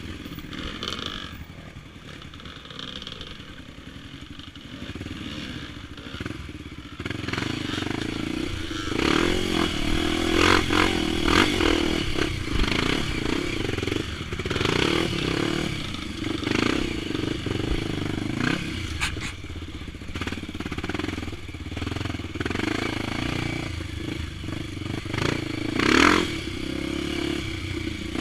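Honda XR 250 Tornado dirt bike's single-cylinder four-stroke engine, bored to 280cc and fitted with a ProTork aftermarket exhaust, running on a trail. It is at low revs for the first several seconds, then pulls harder on and off the throttle from about seven seconds in, with clatter and knocks over the engine sound.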